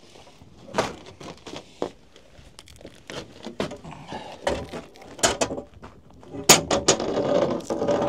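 Irregular knocks, clicks and clatter of objects being handled, growing busier and louder near the end, with a voice briefly audible at the close.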